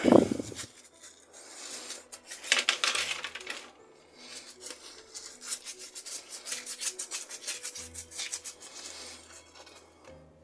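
Wet and dry sandpaper rubbing rust marks off the steel centerpiece of FELCO 7 secateurs: a short scrape, then a run of quick back-and-forth strokes.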